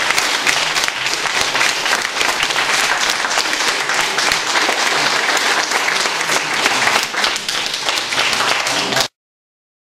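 Audience applauding, many hands clapping steadily; it cuts off suddenly near the end.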